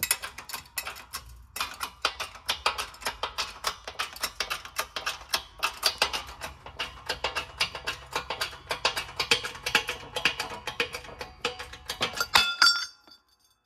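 Background music with rapid plucked-string notes over a steady low bass, ending with a ringing final note near the end.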